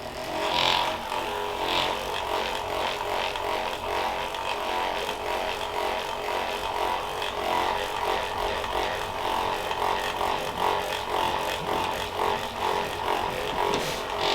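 Handheld electric massager running steadily against the lower back, its motor pulsing as it is pressed and moved over the muscles.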